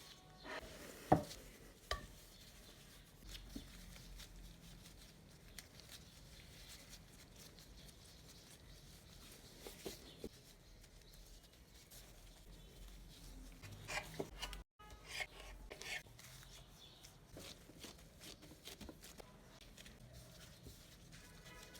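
Faint kitchen work sounds: scattered soft taps and knocks on a work surface, clustering more thickly about two-thirds of the way through.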